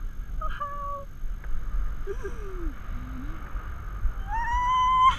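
Wind buffeting the microphone of a parasailer in flight, with a few faint short vocal sounds. Near the end comes a loud, high, drawn-out squeal of excitement from the flyer, starting again just as it ends.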